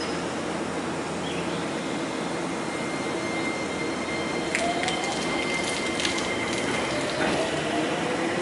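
Nankai 2300 series electric train standing with its equipment humming steadily, then pulling away: from about halfway a faint traction-motor whine rises in pitch and a few sharp clacks come from the wheels and couplings as it starts to move.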